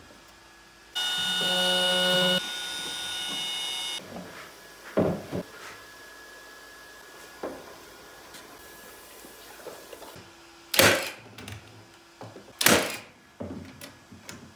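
Workshop power-tool sounds: a steady mechanical whine for about three seconds, a few light knocks of lumber being handled, then two sharp loud shots of a cordless nailer driving nails into a wooden frame near the end.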